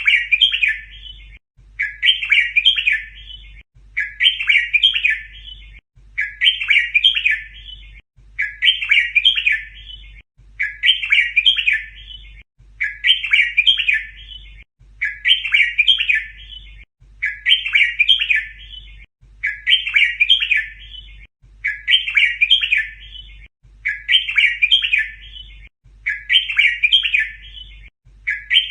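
Red-whiskered bulbul song: one short, rapid phrase repeated the same way about every two seconds, a looped tutor song for teaching young bulbuls to sing.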